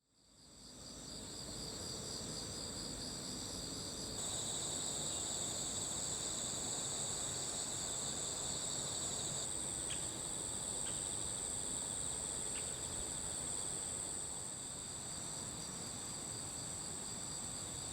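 Chorus of crickets and other insects chirping, several high trilling songs overlapping steadily after fading in at the start, with a few faint clicks near the middle.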